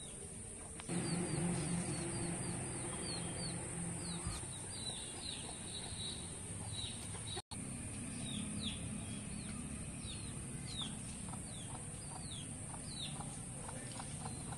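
Chicks peeping: a string of short, high, falling peeps, one or two a second, over a low background hum that sets in about a second in. The sound drops out for an instant about halfway.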